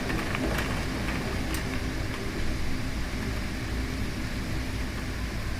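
Severe thunderstorm's straight-line winds blowing hard, rumbling steadily on the microphone, with rain driving down.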